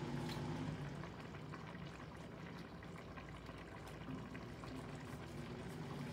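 A room air conditioner's steady hum fades out about a second in as it is switched off, leaving a faint even hiss with light ticks.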